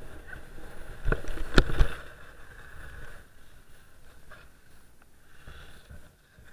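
Skis scraping and rattling over chopped-up snow, heard muffled through a helmet-mounted action camera, with a few sharp knocks between one and two seconds in, then a quieter steady hiss of skis gliding on smoother snow.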